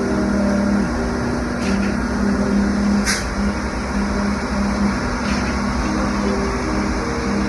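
Concrete pump truck's engine running steadily, with a hum whose pitch shifts now and then and a few faint clicks.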